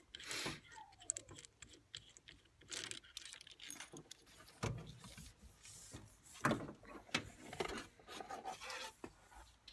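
Irregular small metallic clicks and clinks, with some handling rustle, as nuts and washers are worked off the threaded end of an auxiliary throttle control cable by hand. The loudest click comes about six and a half seconds in.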